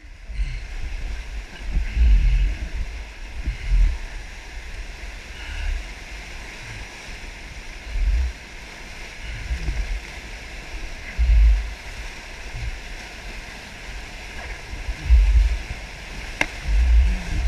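Whitewater rapid rushing steadily around a packraft as it runs through, with a low thump every few seconds.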